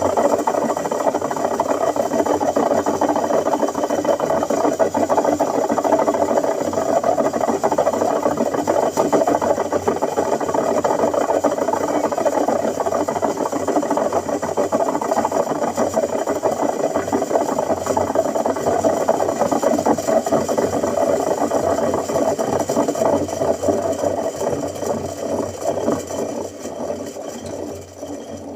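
Washing machine running with a steady mechanical rumble and rattle, fading over the last few seconds.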